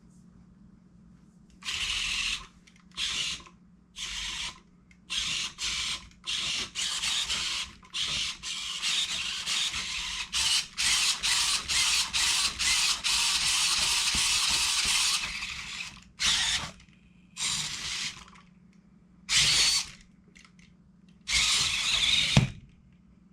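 Servo motors of a Robosen Optimus Prime Elite robot whirring in a long series of stop-start bursts as its limbs move, some short and one lasting about five seconds.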